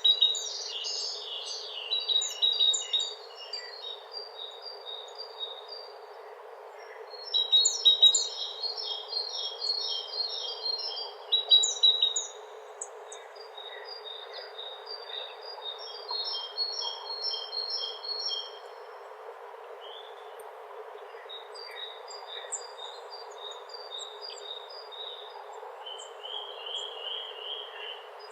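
Songbirds singing: bouts of quick, high chirping and trilled phrases a few seconds long, with short pauses between them, over a faint steady hiss.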